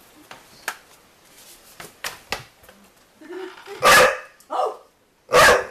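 Pit bull puppy barking three times in quick succession in the second half, after a few light knocks and taps.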